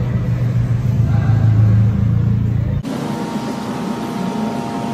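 Volkswagen Mk4 GLI's engine running low and steady, heard from inside the cabin while driving. About three seconds in it cuts off suddenly, giving way to a quieter steady hum with a faint whine.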